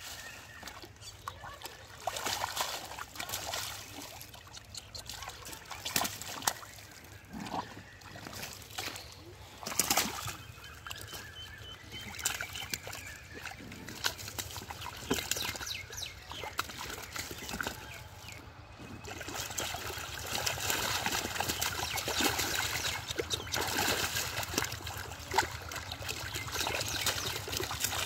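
Splashing and sloshing in a shallow pool of muddy water as catfish are grabbed by hand and thrash. Irregular splashes at first, becoming busier and more continuous about two-thirds of the way in.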